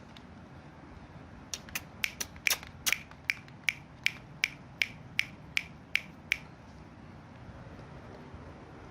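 A run of about fifteen sharp clicks, irregular at first, then settling to an even rhythm of about two and a half a second before stopping, over a faint steady background.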